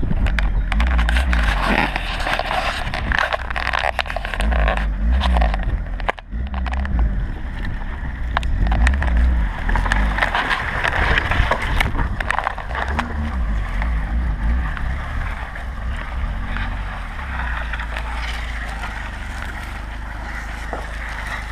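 VAZ-2106 inline-four engine pulling in low gear, its revs rising and falling several times, while wooden slabs dragged behind on a rope scrape and knock over the ground. The noise settles and becomes steadier in the last few seconds.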